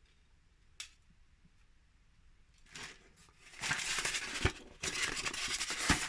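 Crinkling and rustling of plastic packaging being handled: a single click under a second in, then irregular, loud crinkling starting past the halfway point.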